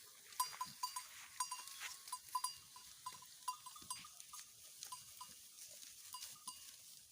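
Small bells on grazing goats clinking irregularly, several light clinks a second at one steady pitch, as the goats browse through brush.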